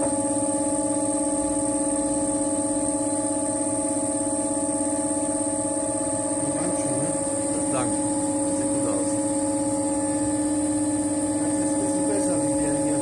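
Electric potter's wheel running with a steady motor hum. Faint voices come in about halfway through and again near the end.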